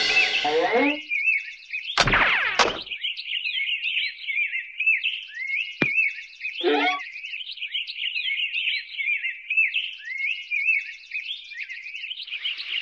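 Cartoon sound-effect bird tweeting: a fast, high, unbroken chirping that runs throughout. It is broken by a loud burst at the start, another loud burst with a falling pitch about two seconds in, a sharp click near six seconds and a short lower sound just after.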